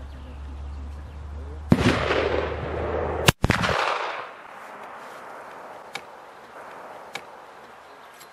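A single shot from a J. P. Sauer und Sohn single-shot rifle in 11 mm Mauser, firing a black-powder load, a little under two seconds in, with a long echo that dies away over about two seconds. A second sharp crack follows about a second and a half later, and a few faint clicks come after it.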